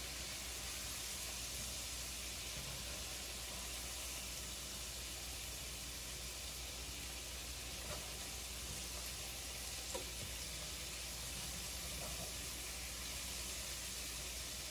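Pieces frying in oil in an electric skillet: a steady sizzling hiss, with two light clicks of metal tongs around the middle.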